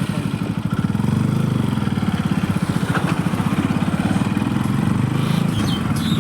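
Bajaj Pulsar NS200 single-cylinder motorcycle engine idling just after being started, with an even, rapid exhaust beat that grows a little louder about a second in.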